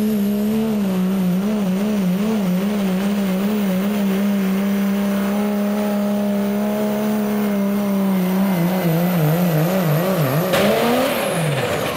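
Dodge Ram diesel pickup pulling a loaded sled at full throttle: the engine is held at high revs on one steady note that wavers up and down, more strongly after about eight seconds, then drops in pitch and dies away near the end as the truck bogs down and the pull ends.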